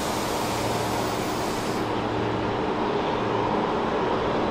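Jet airliner engines running: a steady rumble with a constant low hum. The high hiss drops away about two seconds in.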